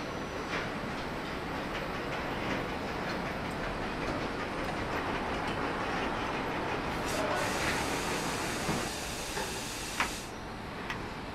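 Car assembly-line factory noise: a steady machinery din with scattered clanks. A hiss runs from about seven to ten seconds in, and a sharp click comes about ten seconds in.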